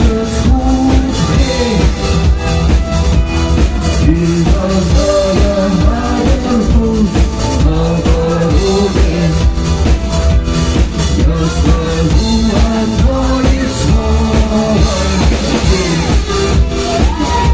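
Live rock band playing an instrumental passage, with a steady drum-kit beat under bass and melodic lines, loud and continuous.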